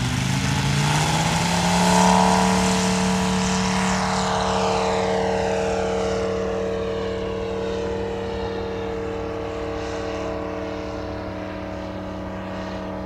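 Model airplane engine and propeller throttling up, the pitch rising over the first two seconds. It then holds a steady drone that slowly fades.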